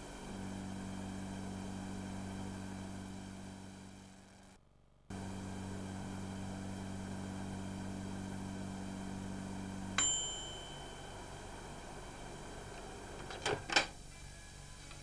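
Quickchef microwave oven running with a steady low mains hum, which drops out for half a second just before halfway. About ten seconds in the hum stops and the oven's bell dings once to end the cooking cycle; near the end the door release clacks two or three times as the door is opened.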